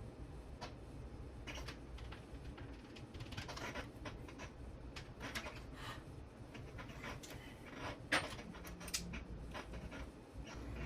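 Scattered small clicks and brief rustles of hands handling parts and wires during model-helicopter assembly, over a low steady hum.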